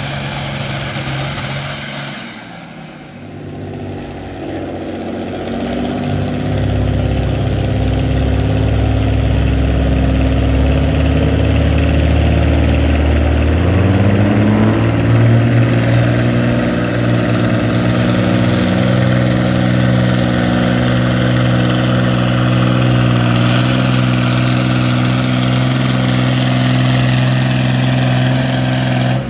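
John Deere farm-stock pulling tractor's engine working hard under load as it drags a weight-transfer sled. The sound dips briefly about two to three seconds in, then comes back loud and steady, its pitch rising a little partway through.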